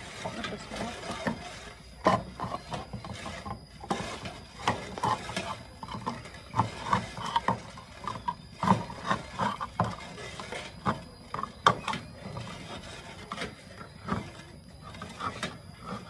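A tin of sweetened condensed milk being cut open with a large kitchen knife: irregular metallic clicks, taps and short squeaks as the blade is worked into and around the tin lid.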